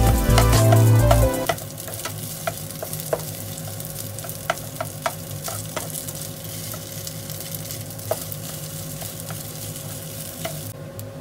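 Cold rice frying in oil in a nonstick frying pan: a steady sizzle, with a spatula scraping and tapping against the pan as the rice is stirred. Music with a heavy bass plays over the first second and a half, then stops.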